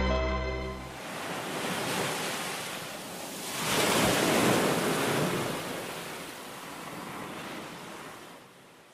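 Music ends about a second in and leaves the rush of sea waves and surf. The surf swells around four seconds in, then fades out to silence.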